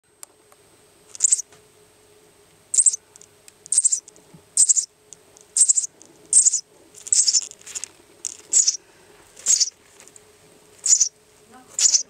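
Nestling bird begging with about a dozen short, high-pitched cheeps, roughly one a second. A faint steady hum runs underneath.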